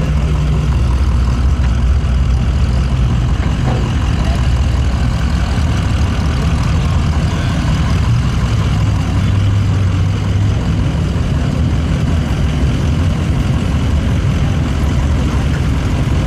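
A vehicle engine running at a steady idle.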